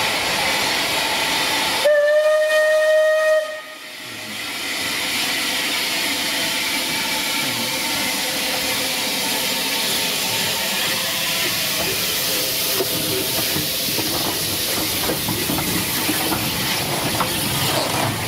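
Bulleid Battle of Britain class steam locomotive 34081 '92 Squadron' sounds its whistle once, a steady blast of about a second and a half starting about two seconds in. After it comes a steady hiss of steam from the open cylinder drain cocks as the engine draws slowly past, with light clanking near the end.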